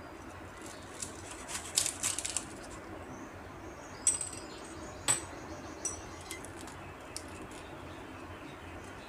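Knife cutting through a crisp deep-fried spring roll on a wooden chopping board: a cluster of crunchy crackles about one and a half to two and a half seconds in, then two sharp knocks about four and five seconds in, and a few fainter clicks after.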